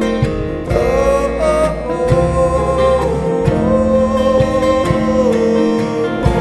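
A song: a singing voice holding long notes that bend slightly, over plucked and strummed acoustic guitar.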